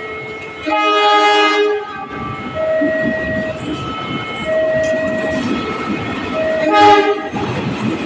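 Diesel locomotive horn sounding two chord blasts, a longer one about a second in and a shorter one near the end, while the train rolls through with wheels clattering on the rails. Underneath, the level-crossing warning alarm repeats two alternating tones, each about a second long.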